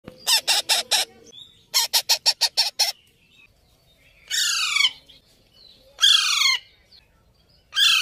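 Parakeets calling: two quick runs of short, harsh repeated calls, five then seven, in the first three seconds, then three longer screeches, each falling in pitch, spaced about a second and a half apart.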